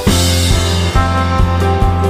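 Background music with a steady drum beat and bass line, with a cymbal crash at the start that fades away.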